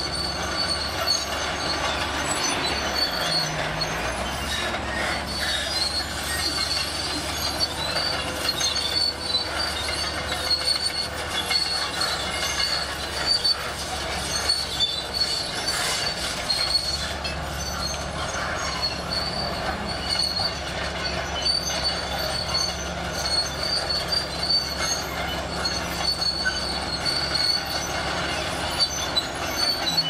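Shantui SD22 crawler bulldozer at work: its steel tracks squeal and clank steadily over the diesel engine running as it pushes dirt and travels back and forth.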